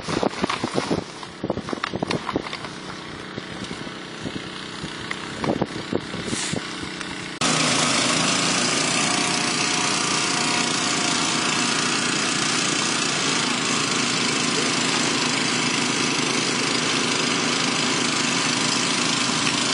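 Irregular crinkling and knocking of the plastic dam sheeting being handled. About seven seconds in, it cuts abruptly to the loud, steady running of several small gasoline-engine portable water pumps pumping water to fill the water-filled dam.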